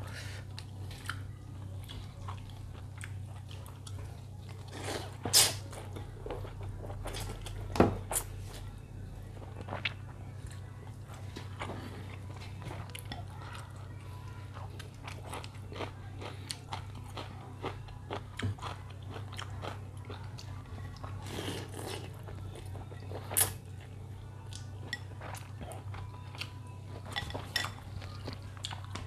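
A person chewing and biting through a bowl of Bangka-style bakmie (chicken noodles with toppings), with many small clicks and a few louder knocks about 5, 8 and 23 seconds in. A steady low hum runs underneath.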